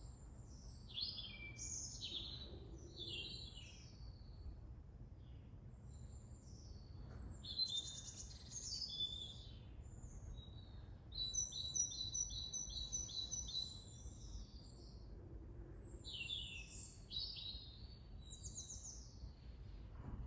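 Small songbirds singing: quick bursts of high chirping phrases every few seconds, with a rapid trill of evenly repeated notes, about four a second, a little over ten seconds in. A faint low rumble runs underneath.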